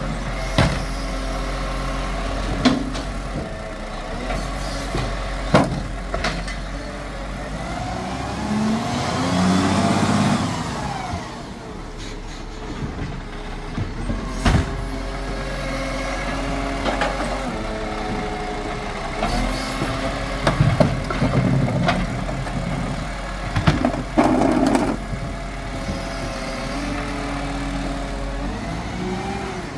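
Side-loading garbage truck running, its engine revving up and falling back as the hydraulic arm lifts and empties wheelie bins. Sharp knocks and clatters from the bins and arm come every few seconds.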